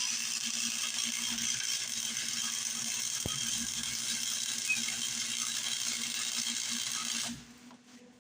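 TIG welding arc burning steadily with an even hiss over a low electrical hum while a steel bracket is fused together; the arc cuts off sharply about seven seconds in, leaving only the faint hum.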